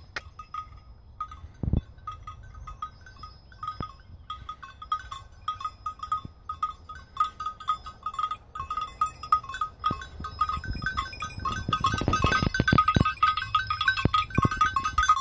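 Bells worn by a small flock of Angora (mohair) goats clinking irregularly as the goats walk, growing louder and busier near the end as they come close. Low thuds join in over the last few seconds.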